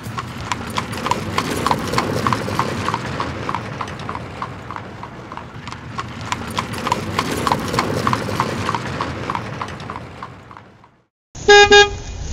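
Horse hooves clip-clopping at a steady trot, about four hoof beats a second, fading out. After a brief silence comes a loud, short horn-like tone that sounds twice near the end.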